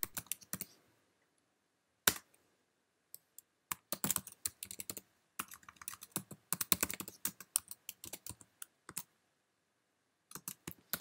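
Typing on a computer keyboard: quick runs of keystrokes in several bursts, with short pauses between them.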